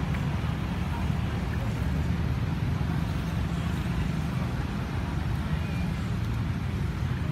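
Steady low rumble of outdoor background noise, unbroken and without distinct events.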